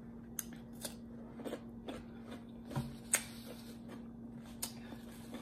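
Close-miked crunching and chewing of a raw cucumber spear: scattered crisp crunches and wet mouth clicks, the loudest crunch about three seconds in, over a faint steady hum.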